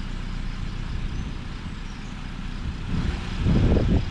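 Wind buffeting the microphone: a low, uneven rumble that swells into a strong gust about three and a half seconds in.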